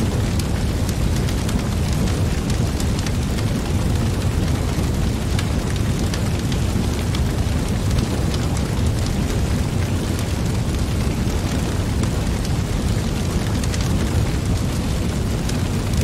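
Wood fire burning in a fire pit: a steady low rumble of flames with frequent small pops and crackles from the burning logs.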